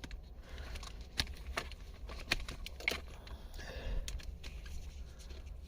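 Faint handling noise: a few scattered light clicks and rustles from test leads and probes being moved about, over a low steady hum.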